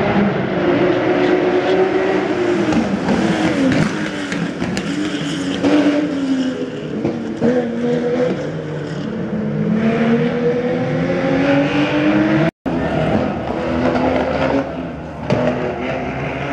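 Historic rally cars racing past on a tarmac circuit, their engines revving hard through the gears. The pitch climbs and drops again and again, and the sound cuts out briefly about twelve seconds in.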